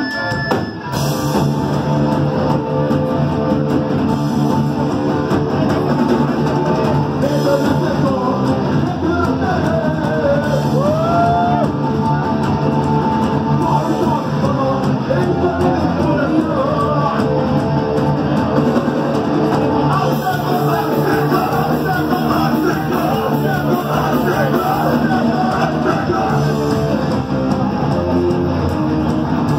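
Punk band playing live: distorted electric guitar and a rock rhythm section with a singer, the full band coming in about a second in and then playing on without a break.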